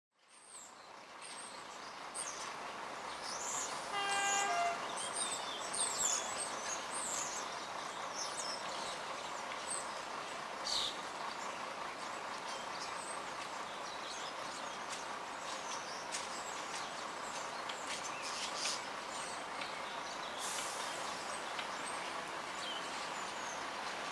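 Outdoor ambience at a railway station platform: a steady background hiss, with birds chirping and a short pitched tone about four seconds in. It fades in at the start.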